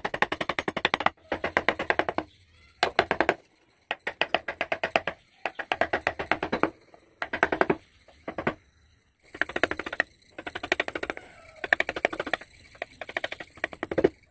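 Carving gouge and chisel cutting into a wooden board, heard as repeated bursts of quick, evenly spaced taps, each about a second long, with short gaps between them.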